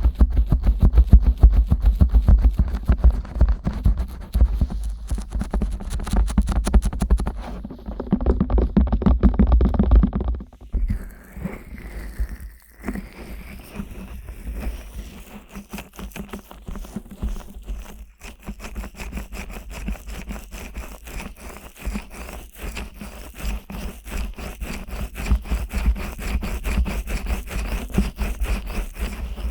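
Fingers and hands rubbing and scratching the silicone ears of a 3Dio binaural microphone in quick, close strokes. The sound is loud and boomy for about the first ten seconds, then turns softer and quieter.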